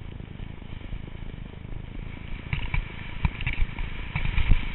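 Wind rumbling across a helmet-mounted camera's microphone while skiing downhill, with skis scraping and clattering over the snow, the knocks coming thicker from about halfway in.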